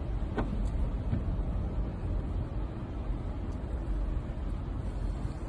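Car cabin noise while driving on snowy streets: a steady low rumble of engine and tyres, with a faint click about half a second in.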